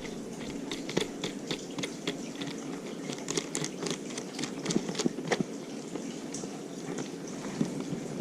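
Hands working the terminal fittings of a lithium battery power box: irregular small clicks and taps of plastic and metal parts, over a steady low hum.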